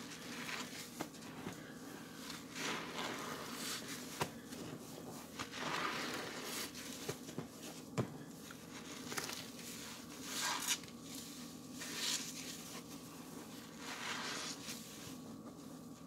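Soapy wet sponges being squeezed and worked, the suds squelching and crackling in repeated swells, with a couple of sharp clicks.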